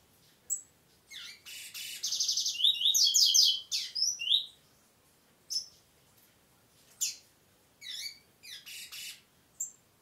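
Double-collared seedeater (coleiro) singing: a loud three-second song phrase of fast trills and buzzy notes, then single sharp chirps and a second, shorter phrase near the end.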